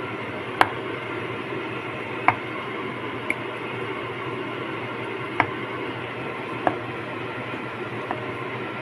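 Wire potato masher pushing through boiled potatoes and knocking against the pot, six short, sharp metallic clinks spread unevenly across a few seconds over a steady background hiss.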